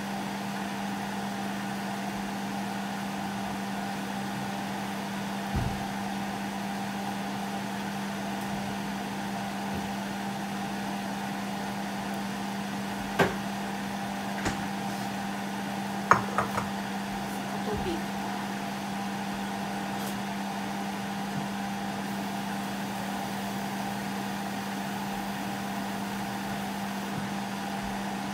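Steady motor hum of a kitchen fan, with a few sharp clicks, the loudest about 13 and 16 seconds in.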